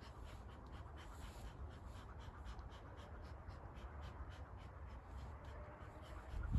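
A rapid run of light, scratchy strokes, about three to four a second, over a faint low rumble.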